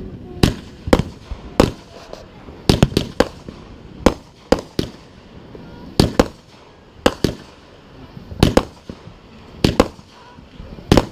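Fireworks going off: a steady run of sharp bangs and pops, about one or two a second and irregularly spaced, some coming in quick doubles.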